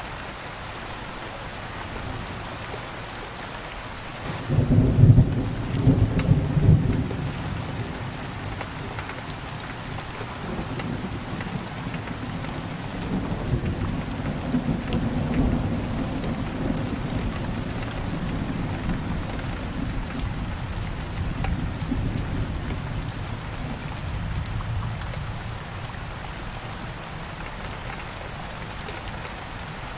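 Heavy rain falling steadily against a window, with a loud clap of thunder about four seconds in and then a long, low rolling rumble of thunder through the middle that slowly fades back to the rain alone.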